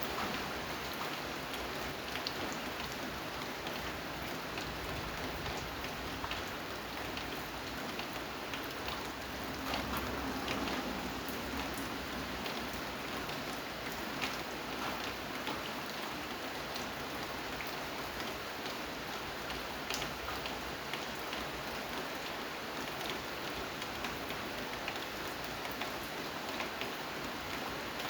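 Steady rain falling, with individual drops ticking sharply against a surface and a slight swell in the downpour about ten seconds in.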